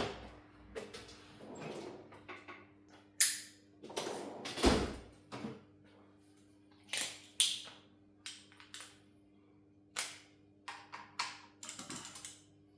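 Irregular clicks and knocks of metal tools and engine parts being handled during a teardown of a Suzuki F6A engine, some with a brief metallic ring, over a faint steady hum.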